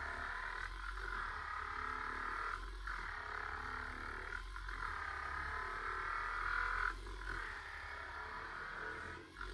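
Vibro Sculpt handheld electric massager running, its self-rotating head whirring against the skin of the belly. The steady whir dips briefly about every two seconds as the head is shifted over the body.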